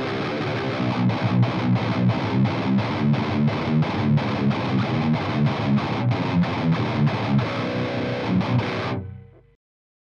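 Electric guitar played through a Dan Gower modded Marshall JMP amp, overdriven by a KHDK Ghoul Screamer pedal and recorded from a Randall isolation cab with a single V30 speaker. It plays a riff with short regular breaks between notes, about three a second, then holds a chord that cuts off abruptly about nine seconds in.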